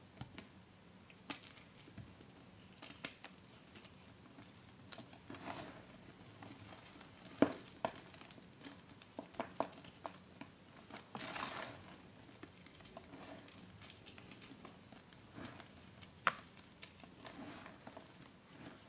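Hands crushing and crumbling lumps of gym chalk: soft crunches and sharp cracks at irregular moments, with a longer hiss of powder sifting through the fingers about eleven seconds in.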